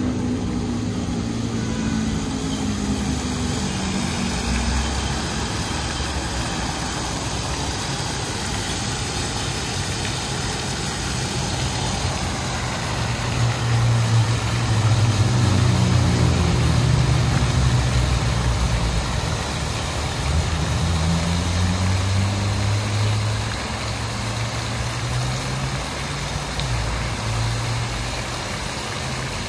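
Steady splashing of a large fountain's many jets falling into its basin, mixed with the low running of street traffic. Vehicle engines rise and fall as they pull away and pass, loudest a little under halfway through.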